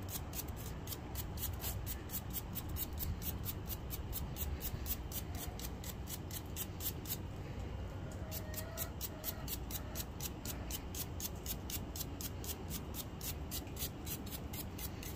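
Nylon bristle brush scrubbing a vinegar-soaked steel file in quick, even strokes, about three to four a second, with a short pause about halfway through.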